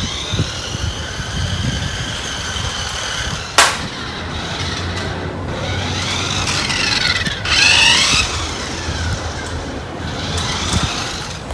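Small electric motor and gears of a toy remote-control racing car whining, the pitch rising and falling as the car speeds up and slows. One sharp knock comes about three and a half seconds in.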